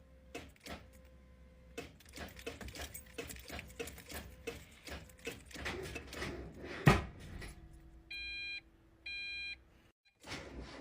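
Scattered light clicks and knocks, one sharper knock about seven seconds in, then two short electronic beeps about a second apart.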